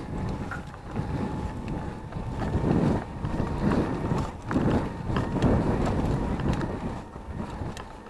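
Wind buffeting the camera microphone of a mountain bike riding a dirt singletrack, in gusty swells, with scattered sharp clicks and rattles from the bike over rough ground and a faint steady whine underneath.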